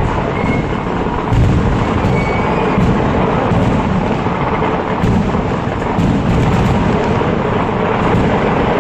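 A dense barrage of festival fireworks (Kerala temple vedikkettu), the explosions merging into a continuous thunder-like rumble. Louder bursts come about a second and a half in and again around five seconds in.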